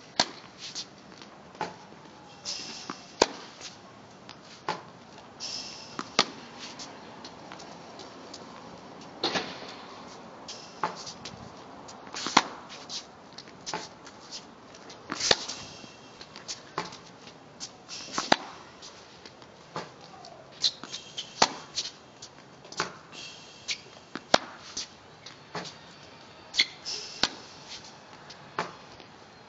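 Tennis balls being struck with a racket and bouncing on a hard court, sharp pops every one to three seconds with quieter bounce taps between them.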